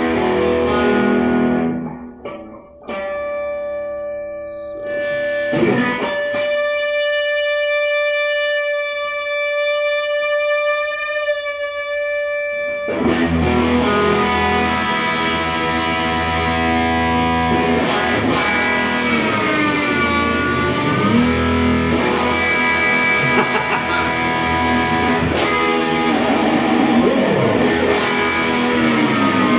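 Suhr Standard Plus electric guitar being played: a few chords, then a single note held for about seven seconds with a little vibrato near its end. From about halfway through comes louder, busier lead playing with string bends.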